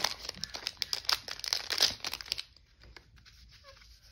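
Packaging crinkling as it is handled and opened, busy for about two and a half seconds, then dropping to faint rustling.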